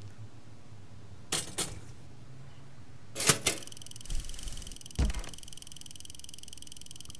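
Pop-up toaster being set going: a few sharp clicks, the loudest about three seconds in, and a couple of dull thuds. Then a steady high-pitched electric hum starts and carries on.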